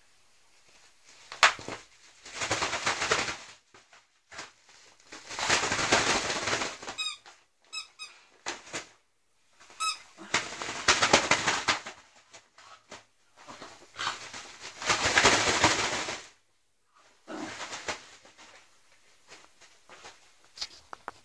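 A schnauzer tearing at and shaking a parcel's wrapping, making repeated bursts of crinkling and rustling, each a second or two long, with quiet gaps between them. A few short high squeaks come in the middle.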